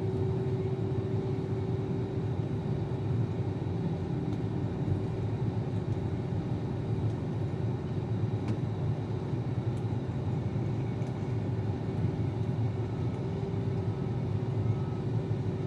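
Combine harvester's engine running steadily: a low rumble with a constant hum.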